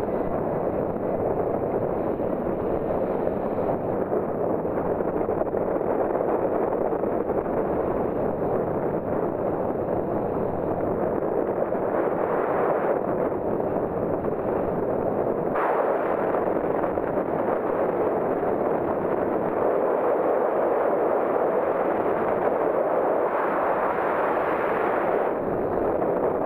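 Steady rush of wind over an action camera's microphone on a hang glider in flight, the airflow noise shifting abruptly in tone a couple of times.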